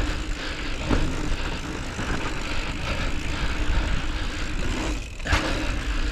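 Mountain bike descending a loose dirt trail at speed: tyres crunching over the dirt and wind rumbling on the action camera's microphone, with a couple of sharp knocks and rattles from the bike, one about a second in and a louder one near the end.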